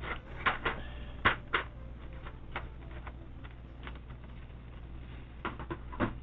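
Plastic keycaps being pressed onto a mechanical keyboard's switch stems: sharp clicks and knocks in short clusters, with lighter ticks between, and a second cluster near the end.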